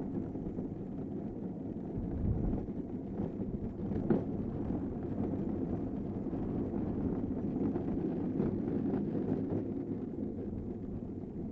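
A gravity-powered downhill kart coasting on asphalt: the steady rumble of its wheels on the pavement and the rattle of the kart, with wind buffeting the microphone. A sharp knock comes about four seconds in.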